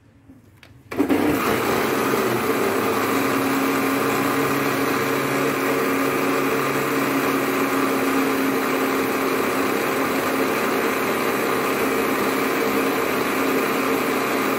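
Electric countertop blender (a National model) switched on about a second in and then running steadily at full speed, puréeing a jar of boiled dried apricots in tamarind syrup into a smooth chutney.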